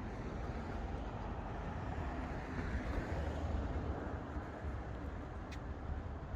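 City street traffic: a steady rumble of passing cars that swells around the middle, with a short sharp click about five and a half seconds in.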